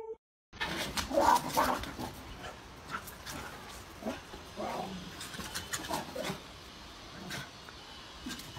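A small dog barking and yelping in short, irregular bursts while it squares off with monkeys. The calls are loudest in the first couple of seconds and thin out towards the end.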